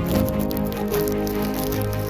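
Background music: held notes and chords that change every half second or so, with a light ticking above.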